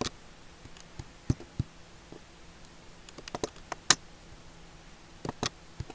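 A scattered series of sharp computer mouse clicks, the loudest about four seconds in.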